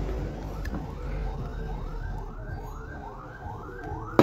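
A siren-like electronic tone sweeping upward over and over, about two sweeps a second, starting about a second in. A single sharp click near the end.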